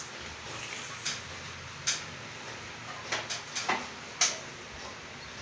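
A handful of scattered light clicks and knocks over a steady low hiss.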